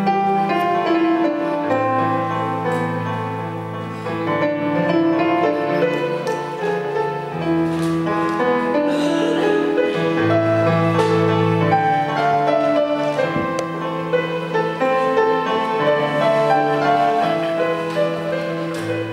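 Electronic keyboard playing a slow instrumental passage: long sustained chords in the bass with a melody line over them.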